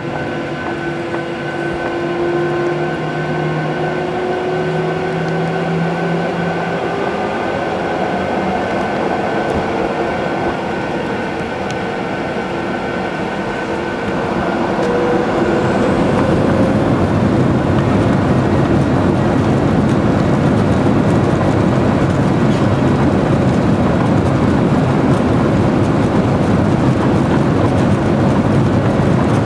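Jet airliner's engines heard from inside the cabin. At first there is a steady whine with a few held tones, then about halfway through they spool up to takeoff thrust and a louder, steady roar takes over as the takeoff roll begins.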